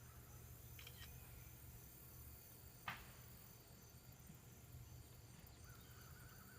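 Quiet outdoor ambience with faint, steady insect buzzing and a low hum, broken by one sharp click about three seconds in.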